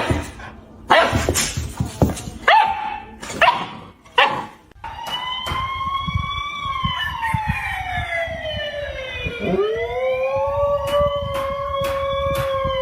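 A dog barks several times, then gives one long howl that rises, sinks slowly and rises again before holding its pitch.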